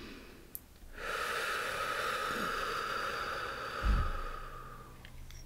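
A long, slow exhale, a breathy hiss that starts sharply about a second in and fades away over about four seconds. Near the end there is a short low bump.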